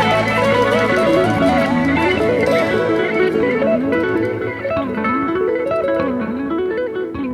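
Background music: a guitar picking a fast melody that winds up and down over held low bass notes.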